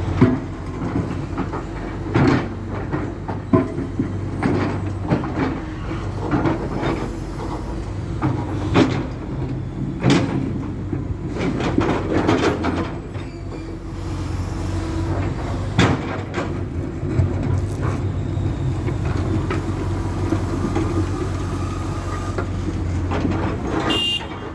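Excavator's diesel engine running steadily, with irregular sharp knocks and cracks as the bucket strikes and breaks up asphalt.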